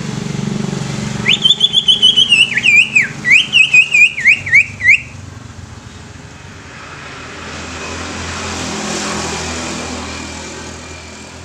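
Green leafbird (cucak ijo) singing a fast run of loud, looping whistled notes, about four a second, starting about a second in and stopping after nearly four seconds. Traffic noise then swells and fades.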